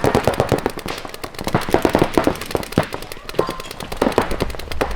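Rapid, overlapping volleys of shots from several game guns (paintball/airsoft-type markers) firing at once, a dense fast stream of pops.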